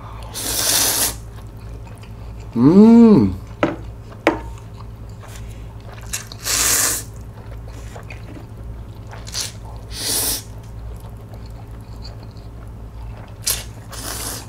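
A man slurping spicy bibim noodles with whelk in several short, hissy slurps spread through the stretch. About three seconds in comes a short hum that rises and falls in pitch, with faint chewing clicks between the slurps.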